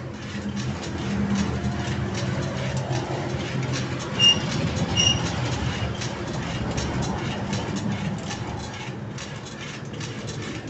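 The metal mechanism of a homemade rice transplanter, with its chain, seedling-tray drive and planting arms, running with a fast, steady clicking rattle that is fairly smooth, not harsh. Two short high squeaks come about four and five seconds in.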